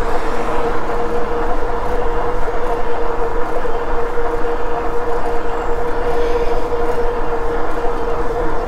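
Steady riding noise from a Himiway Zebra fat-tire e-bike cruising at about 20 mph on pedal assist: wind rushing over the microphone with a constant, unchanging hum.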